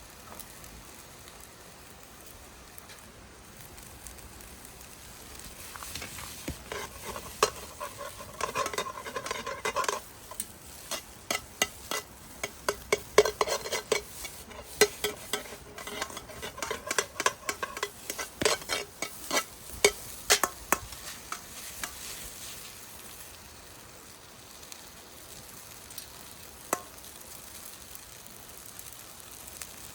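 Fried rice sizzling in a frying pan over high heat while being stirred. From about six seconds in until about twenty-two seconds, the utensil makes a quick run of sharp clacks and scrapes against the pan. After that it goes back to a steady sizzle, with one more clack near the end.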